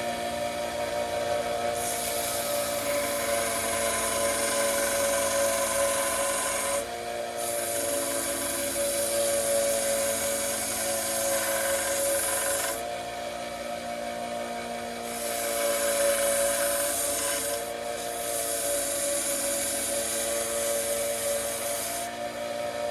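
A small electric sanding tool's motor running steadily while micarta knife scales are sanded, with four long stretches of gritty hiss, broken by short pauses, as the piece is pressed against the abrasive.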